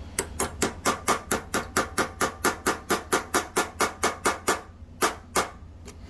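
Rapid light metal-on-metal tapping, about four to five taps a second, then a short pause and two harder taps near the end: a steel pin punch being struck with pliers to drive a stuck, pressed-in pin out of a carburetor's aluminum body.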